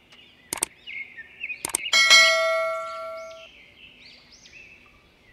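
Intro sound effect: a few sharp clicks, then a bright chime that rings for about a second and a half, over high chirps.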